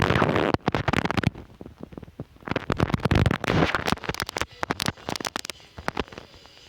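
Handling noise close to the microphone: irregular rustling and crackling with many small sharp clicks, in bursts that die down near the end.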